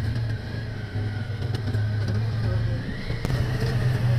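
Motorcycle engine running at a steady drone while being ridden over soft desert sand, with a higher whine that rises a little about three seconds in.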